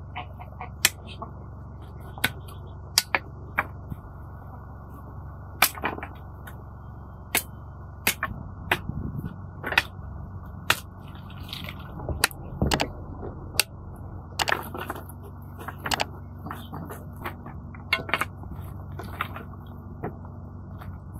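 Knife clicking and tapping against a wooden cutting board as vegetables are cut, sharp irregular taps over a steady low background hum.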